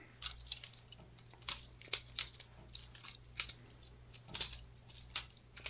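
Boker Plus balisong butterfly knife being flipped open and closed, its handles and blade clacking together in sharp metallic clicks at an uneven pace, a beginner's flips with the odd fumble.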